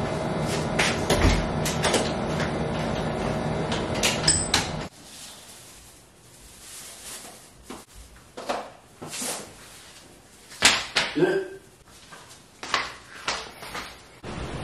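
Household handling sounds: scattered knocks, clicks and scrapes of things being moved and set down. A steady room hum lies under the first five seconds, then stops suddenly, leaving only the knocks.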